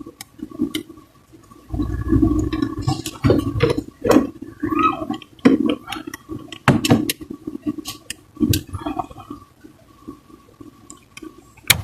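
A plastic interior door-trim part being pressed down at its clip and worked off the door panel, giving irregular sharp clicks and knocks with rubbing and handling noise between them.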